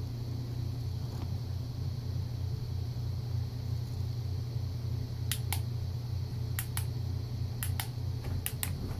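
Four pairs of sharp clicks, starting about five seconds in, as the switch of a Milwaukee M12 flashlight is pressed and released to turn it off and on. Under them runs a steady low hum.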